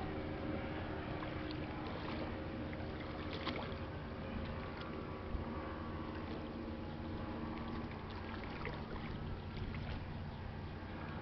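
Freighter Algoma Compass passing under way, her engines giving a steady low drone with a few faint clicks over it.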